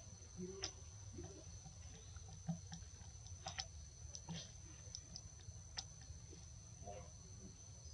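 Faint background with a steady high-pitched whine and a low rumble, dotted with scattered soft ticks and clicks.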